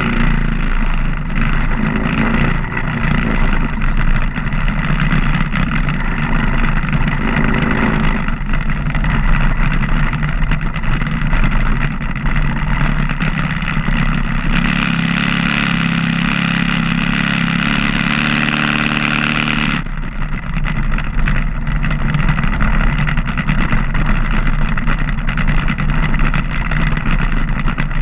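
Vintage BMW motorcycle engine running at low road speed, heard close up from on the bike. From about 14 seconds in it runs harder and louder with its pitch climbing, then drops back suddenly about 20 seconds in.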